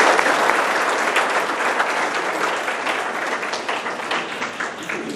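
Audience applauding a speaker's introduction, the clapping loudest at first and gradually dying away.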